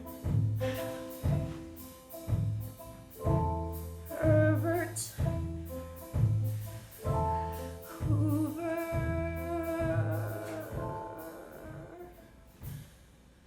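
Closing bars of a musical-theatre song: instrumental accompaniment with low notes struck about once a second under chords, and a wordless sung note held over it. The music fades out near the end.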